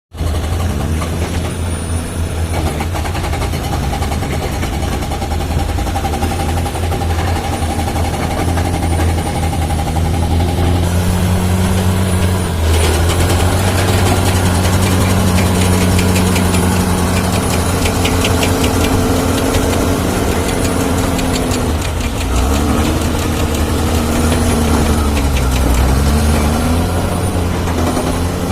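Diesel engine of heavy earthmoving machinery running under load, its pitch dropping and rising several times as it revs. A rapid clatter runs through the middle, and a thin high whine comes and goes.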